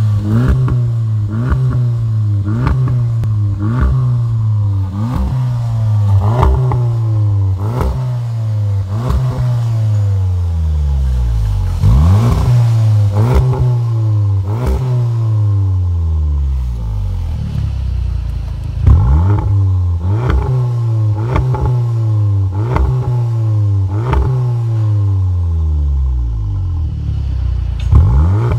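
Volkswagen Golf R Mk7's 2.0-litre turbocharged four-cylinder, heard through an Armytrix stainless-steel valved catback exhaust, revved repeatedly with the car standing still. A run of quick throttle blips comes first, each a sharp rise in pitch and a slower fall. A few longer revs follow near the middle, then more quick blips near the end.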